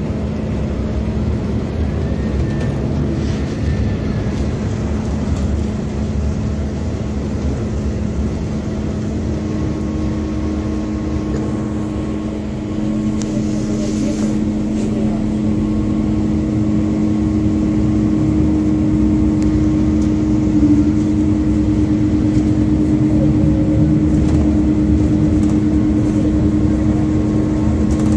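MAZ-205 articulated city bus under way, heard from inside: steady engine and road rumble. About a third of the way in, a steady whine joins and runs on, growing a little louder.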